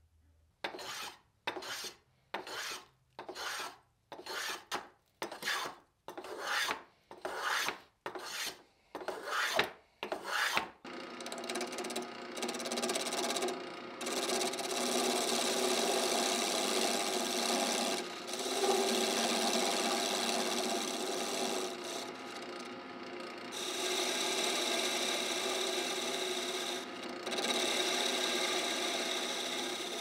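Quick repeated strokes of a hand tool cutting wood, roughly two a second, for about the first ten seconds. Then a wood lathe runs steadily while a turning chisel cuts a spinning spindle, shavings coming off.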